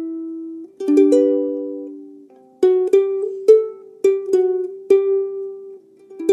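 Background music: a plucked string instrument playing a slow melody of single notes and a few chords, each note struck sharply and ringing out as it fades.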